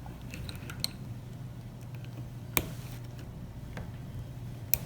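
A small screwdriver working the E-clip off the centrifugal shift weights of a Sturmey-Archer automatic two-speed hub: four sharp metallic clicks, the loudest about two and a half seconds in, over a steady low hum.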